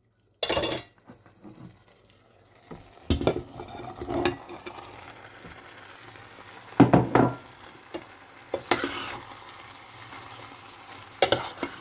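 Chopped potatoes and green capsicum going into a stainless-steel pot of frying masala: a steady sizzle under repeated knocks and scrapes of a metal spoon against the pot as they are stirred in.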